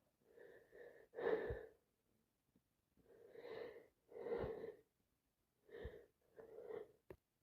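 A person with a heavy head cold taking a string of about six short, wheezy, catching breaths, the loudest about a second in.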